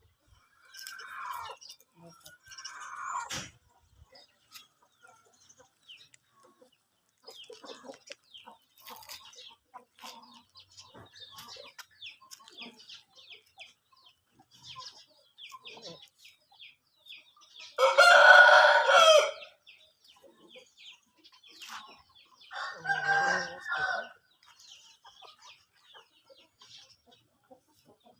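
Aseel chickens calling: a rooster crows loudly about two-thirds of the way through, followed a few seconds later by a second, shorter crow, with brief calls near the start and faint rapid chirping in between.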